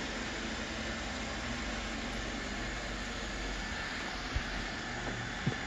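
Robot vacuums running, a steady whirring hum, with two short knocks near the end.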